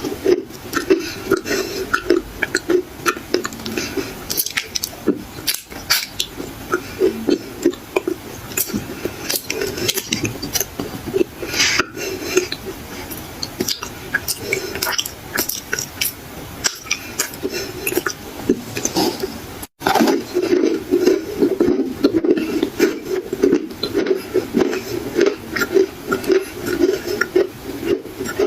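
Close-up crunching and chewing of black clay in the mouth: a dense run of sharp cracks and crackles as the dry clay breaks between the teeth, over a steady wet chewing sound, with a momentary break about 20 seconds in.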